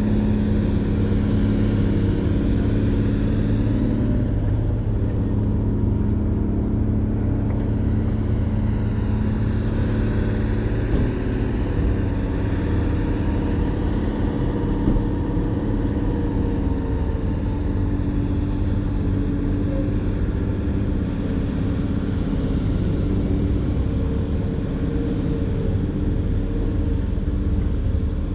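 A heavy diesel engine running steadily at an even speed, its pitch drifting slightly, with a couple of faint knocks in the middle.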